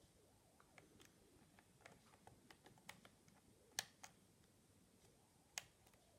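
Faint, irregular ticking and clicking of a lock pick working the pin stack of an Abus 72/40 padlock under tension, with two sharper clicks, one about four seconds in and one near the end.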